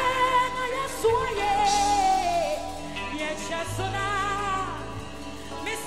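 A woman singing a gospel worship song live into a microphone, holding notes that waver, over a live band's keyboard and bass.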